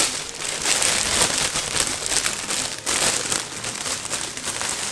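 Clear plastic bag crinkling and rustling as it is handled around a sneaker, with irregular crackles.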